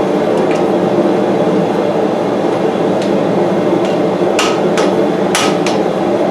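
Hammer blows on steel at the anvil: a few light taps, then four louder strikes in quick succession near the end. Under them a gas forge burner keeps up a steady rushing.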